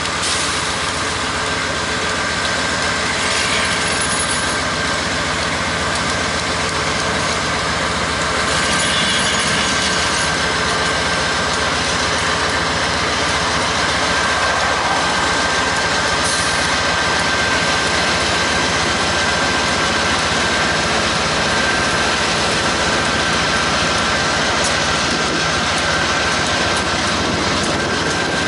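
Diesel engines of a CSX locomotive consist running, a steady heavy rumble with a steady high whine over it.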